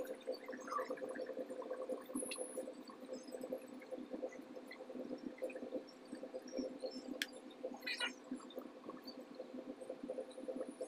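Steady low hum, with a few faint clicks.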